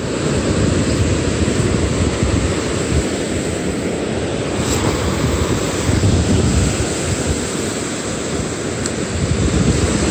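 Wind buffeting the microphone in a steady low rumble, with ocean surf washing up the beach behind it.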